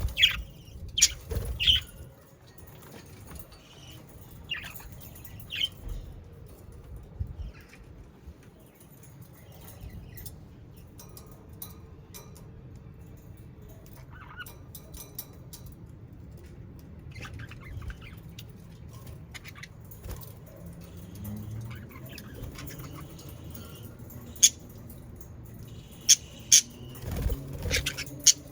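Budgerigars chirping and calling on and off, in short sharp notes, with most activity near the start and again near the end.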